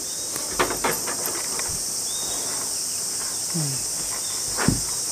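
A steady high-pitched insect chorus, with a few short knocks of handling on the wooden deck: two just after the start and a louder one near the end.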